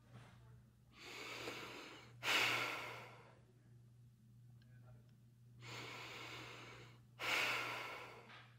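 A person breathing heavily: twice, a drawn breath is followed by a loud, sighing exhale that starts suddenly and fades. A steady low hum runs underneath.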